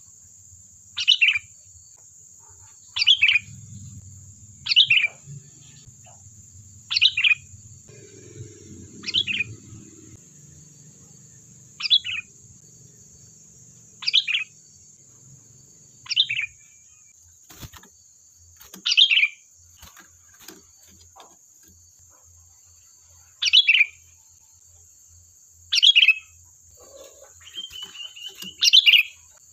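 Sooty-headed bulbul (kutilang) calling: short, sharp notes that fall in pitch, repeated about every two seconds, with a brief rapid chattering trill near the end. A steady faint high hiss runs underneath.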